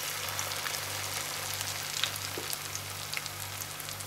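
Pakoras deep-frying in hot oil in a wok: a steady sizzle with scattered crackles and pops, over a low steady hum.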